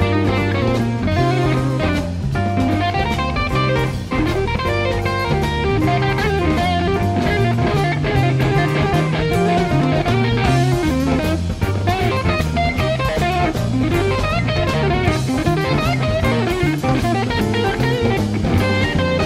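Live blues-rock band: an electric guitar solo on a Gibson SG, fast runs of notes with gliding pitches, over electric bass and a drum kit.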